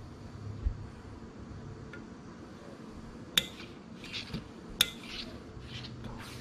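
Steam iron pressed over fusible stay tape on fabric: two sharp clicks about three and a half and five seconds in, with several short soft hisses after them.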